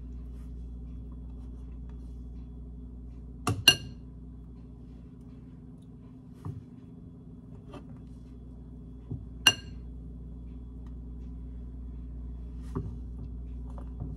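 Light, sharp clinks against a slow cooker's crock as pieces of dumpling dough are dropped in: two close together about three and a half seconds in, a louder one about nine and a half seconds in, and fainter taps between, over a steady low hum.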